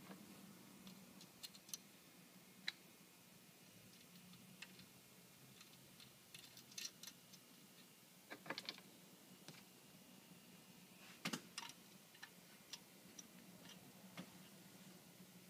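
Faint, scattered light clicks and taps of small metal hardware being handled as nuts and bolts are fitted to a golf cart gearbox, with a few louder clusters of clicks about halfway and two-thirds of the way through.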